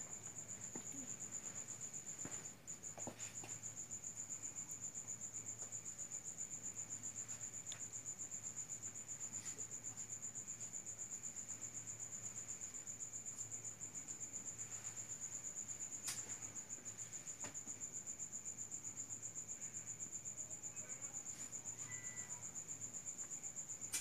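Crickets chirping in a steady, rapidly pulsing high trill, with a few faint clicks.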